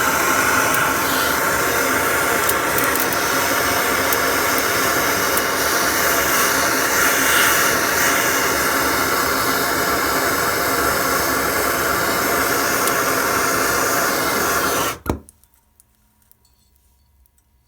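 Handheld gas torch flame hissing steadily as it heats a copper pipe joint for soldering; the hiss cuts off suddenly about fifteen seconds in.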